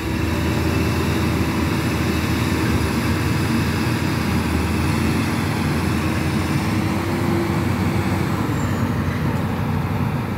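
Heavy diesel engines of a Hitachi Zaxis 350 excavator and a Hino 500 dump truck running steadily under load as the excavator lifts the bogged-down truck out of the mud. A held tone in the engine noise fades out about eight seconds in.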